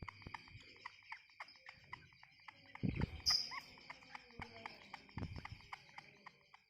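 Young caged songbird chattering in quick, sharp chirps, several a second, over a steady high tone. Two dull thumps come about three and five seconds in.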